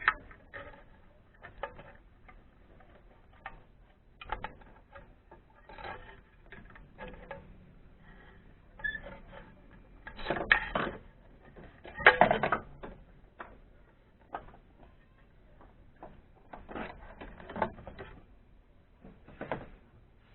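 Hand tools clicking and clinking against metal during spark plug work on an engine, in irregular taps with louder rattling bursts about ten and twelve seconds in.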